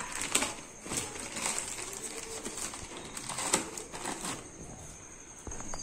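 Plastic courier mailer bag rustling and crinkling in a series of short, irregular crackles as it is cut and pulled open by hand.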